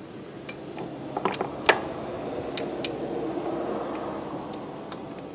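A few small, sharp metal clicks and taps as a kickstand mounting screw is worked into its hole by hand and the stand bracket is shifted, the sharpest about a second and a half in. Under them, a rushing noise swells through the middle and fades toward the end.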